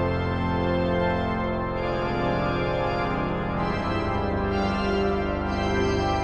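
Klais pipe organ playing slow, sustained chords over a deep bass, the harmony moving every second or two.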